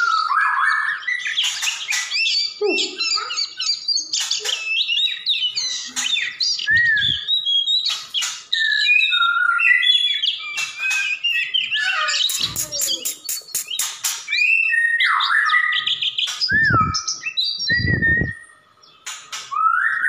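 White-rumped shama singing in full song: a long run of varied whistled phrases, rising and falling glides, mixed with sharp clicking notes. The song breaks off briefly near the end and then resumes.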